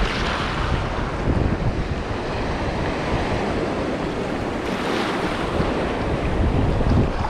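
Small waves breaking and washing over shallow water and rocks, with wind buffeting the microphone as a steady low rumble.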